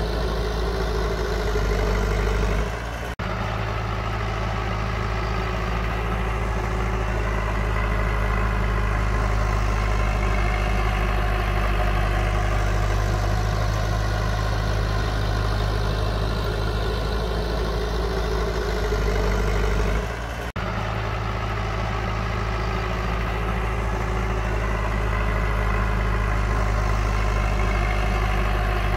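Heavy diesel engine of earthmoving machinery running steadily with a deep hum, broken by two short dips, about three seconds in and about twenty seconds in.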